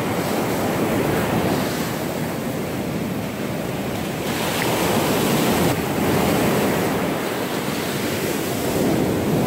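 Steady surf washing onto a sandy beach, mixed with wind noise on the microphone.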